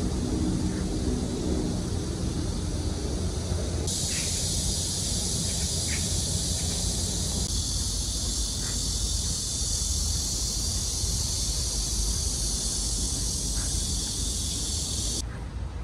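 Cicadas droning in a steady, dense high hiss that starts abruptly a few seconds in and cuts off shortly before the end, over a low steady background rumble.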